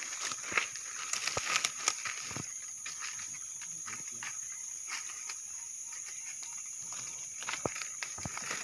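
Steady high-pitched drone of forest insects, with scattered snaps and crunches of twigs and leaf litter as someone pushes through undergrowth. The snaps are thickest in the first couple of seconds and again near the end.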